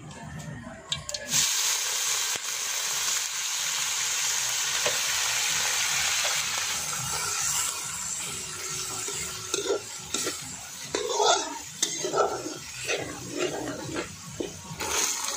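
Food frying in hot oil in a wok, a loud steady sizzle that starts suddenly about a second in. From about ten seconds in, a spatula scrapes and stirs the food against the wok in quick strokes.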